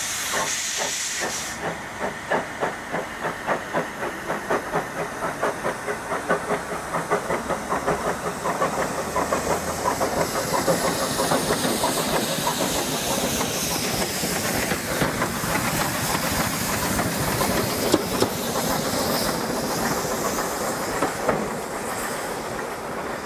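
Small saddle-tank steam locomotive pulling away: a loud hiss of steam from the open cylinder drain cocks for the first second or so, then regular exhaust chuffs that quicken from about two to three a second as it gathers speed and passes.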